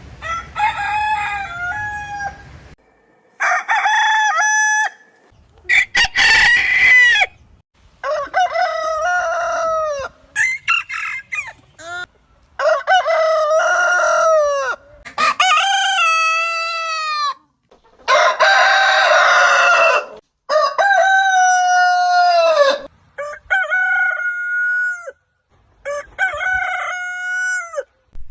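Roosters crowing, about eleven crows one after another, each lasting one and a half to two and a half seconds and ending in a falling drawn-out note, with abrupt silent cuts between them.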